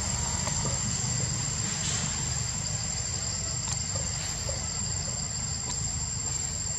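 Continuous high-pitched drone of insects, with a steady low rumble beneath it and a few faint clicks.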